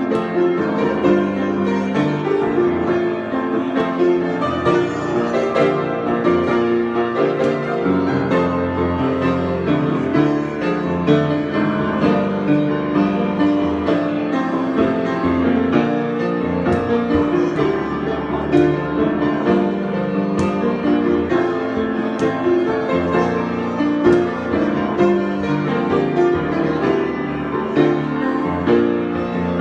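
Solo piano improvisation, played continuously with many overlapping notes and no pauses.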